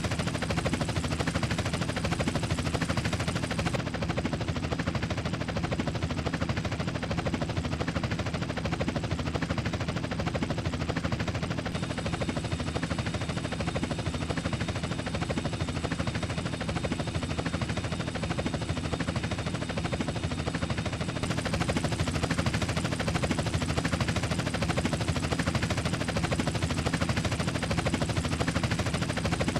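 Helicopter rotor and engine noise, a steady rapid chopping that holds at an even level throughout.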